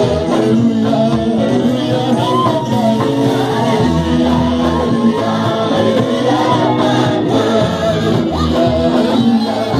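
Live praise-and-worship music played loud and steady through a PA: a lead singer singing into a microphone with sustained, gliding notes over a band of electric guitar, keyboard and drum kit.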